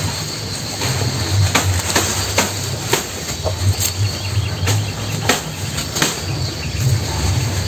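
Cattle biting and chewing grass stalks from a trough, with irregular sharp crunches about one or two a second. Under them run a steady low rumble and a constant high insect drone.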